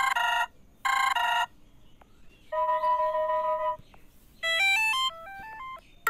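Smartphone ringtones being previewed one after another from the phone's ringtone list. First come two short ringing bursts, then a held electronic chord, then a quick run of beeping notes stepping up and down, each cutting off abruptly.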